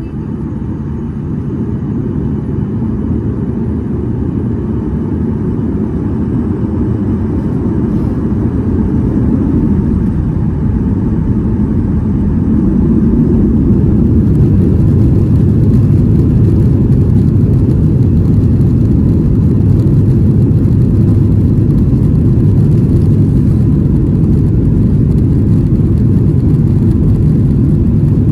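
Boeing 737-800 jet engines running up for takeoff, heard inside the cabin as a low rumble. The rumble grows louder over the first dozen or so seconds, then holds steady as the airliner rolls down the runway.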